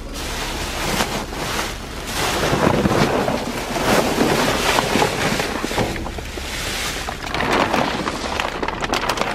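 Plastic trash bags rustling and crinkling as their contents are rummaged through, in an irregular crackling rush.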